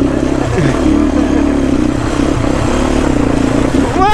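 Motorcycle engine running and revving up and down under load as the bike fords a stream, over a steady rushing noise.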